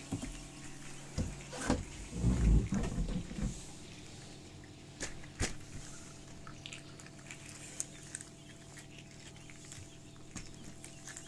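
A plastic incubator hatching tray being handled and set down, with several sharp knocks and a louder low bumping about two seconds in. Faint high cheeping of newly hatched quail chicks and a steady low hum run underneath.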